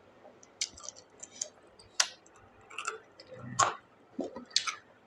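Close-miked eating sounds: wet mouth clicks and lip smacks while chewing pork curry and rice, about five sharp ones at irregular intervals.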